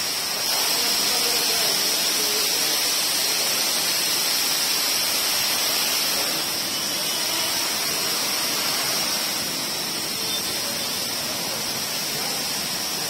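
High-pressure water jets of an automatic underbody car wash machine spraying up against a car's underside: a steady, loud hiss of spray, a little softer in the second half.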